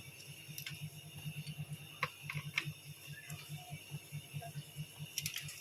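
A few short, sharp metallic clicks and taps of a hand tool working a nut on a motorcycle's clutch assembly, over a low, rapid pulsing hum in the background.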